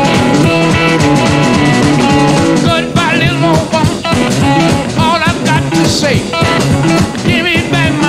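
Electric blues trio playing live: two electric guitars over a drum kit in a steady driving rhythm. From about three seconds in, a high lead guitar line wavers in vibrato, in the manner of slide guitar.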